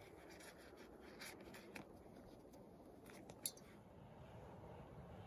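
Faint handling sounds of hands working small camp gear: light clicks and rubbing, with one sharper click about three and a half seconds in.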